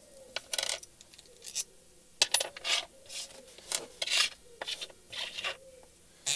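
Small steel bracket fittings (a bolt, washers and nuts) clinking and rubbing as they are unscrewed by hand and set down on the floor, a string of irregular short clinks.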